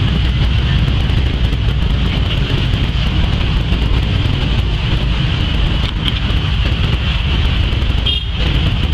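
Steady outdoor rumble, mostly wind buffeting the microphone, with a constant high-pitched hum. It briefly drops away about eight seconds in.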